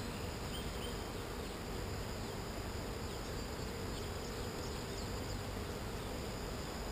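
Many honey bees buzzing together in a steady hum around an opened hive and a board crowded with bees.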